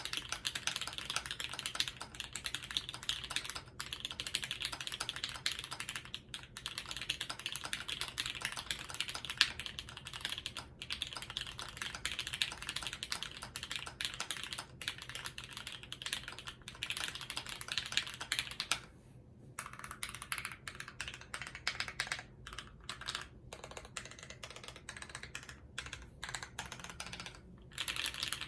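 Continuous typing on a custom Alice-layout mechanical keyboard with an FR4 plate, lubed Tangerine linear switches and GMK ABS keycaps: a dense run of key strokes with a short pause about 19 seconds in.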